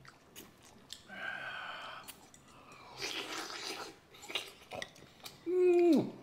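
People eating ramen noodles: chewing with small clicks, then near the end a loud held vocal hum whose pitch drops sharply.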